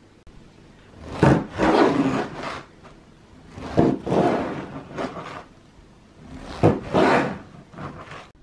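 A knife sawing through a crusty loaf of bread on a wooden cutting board: three runs of sawing strokes, one per slice, each with a sharp sound at its start.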